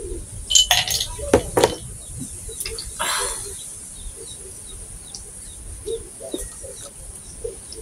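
Fork and glassware clinking several times in the first two seconds, then a short scraping sound about three seconds in.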